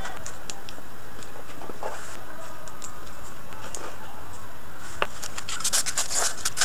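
Scissors cutting a sheet of white polystyrene foam, a quick run of crackling snaps and squeaks that starts about five seconds in. Before that, only a few light clicks of hands handling a plastic cup over a steady background hiss.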